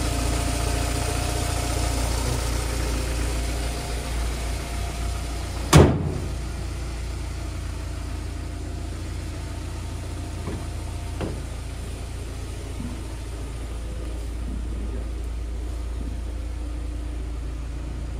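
A 2001 Honda Prelude's four-cylinder engine idling steadily shortly after a cold start. It is a little louder for the first few seconds. About six seconds in there is one sharp, loud thump.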